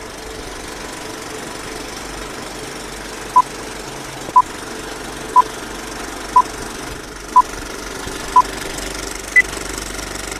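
Old-film projector effect: a steady mechanical whirr and rattle, with short beeps of the countdown leader once a second, six in all starting about three seconds in, then one higher beep near the end.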